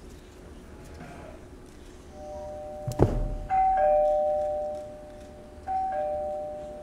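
Two-tone doorbell chime, ding-dong, a higher note falling to a lower one, rung twice about two seconds apart and each note ringing on as it fades. A sharp knock comes just before the first ring.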